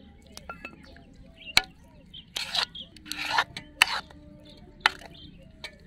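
Steel spoon working thick cooked rice-flour dough in a steel kadhai: a few sharp clicks of metal on metal, and two short rasping scrapes in the middle.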